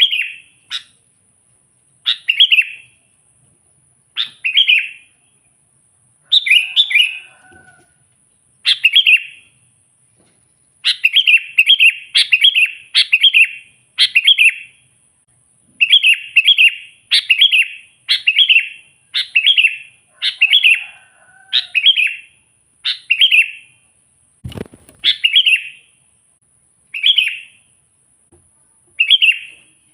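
Sooty-headed bulbul (kutilang) calling over and over in short, bright, chirping phrases, roughly one every second or two, some in quick runs. There is one low thump about 24 seconds in.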